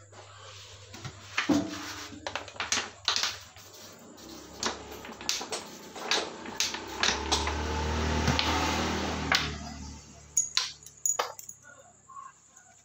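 Scattered metallic clicks and taps of hand work on a Yamaha Mio Sporty's cylinder head and cam sprocket. A few seconds in, a rushing noise with a low hum swells, peaks, and fades out again after about five seconds.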